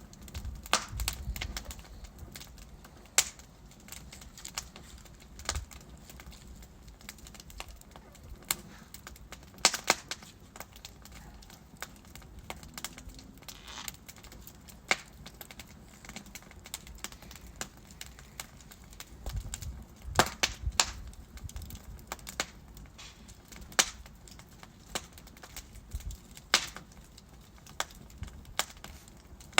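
Logs burning in a fireplace, crackling with irregular sharp pops, a few of them much louder, over a faint low rumble of the fire.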